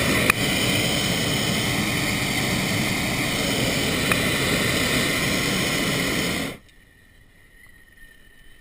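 Hot air balloon's propane burner firing overhead in one long, loud, steady blast that cuts off sharply about six and a half seconds in.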